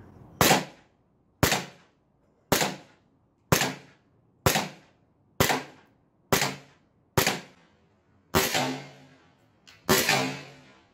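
ICS BLE gas blowback airsoft pistol on green gas firing about ten single semi-auto shots, roughly one a second. Each is a sharp pop with the clack of the slide cycling, and the last few ring on a little longer.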